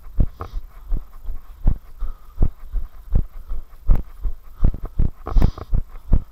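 A runner's own footfalls on a dirt path, picked up as rhythmic thumps through a body-worn camera: a strong thud about every three-quarters of a second, with lighter knocks between.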